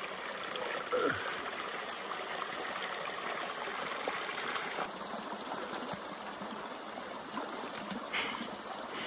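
Shallow hot-spring stream trickling and flowing steadily.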